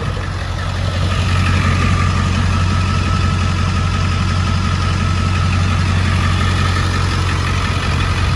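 2002 Ford Super Duty's 7.3 L Power Stroke turbo-diesel V8 idling through an aftermarket full exhaust, a steady low rumble that gets a little louder about a second in.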